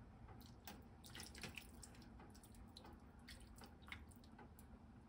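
Near silence with faint drips and small ticking pops: soy sauce poured in a thin stream from a small glass bowl into a pan of chicken simmering in water.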